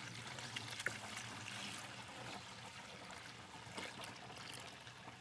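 Maple sap pouring from a collection bucket into a funnel on a plastic container: a steady trickling splash.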